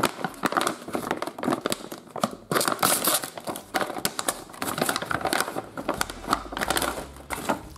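Glossy plastic blind bag crinkling as it is torn open and handled, with irregular crackles and clicks as the toy parts are shaken out.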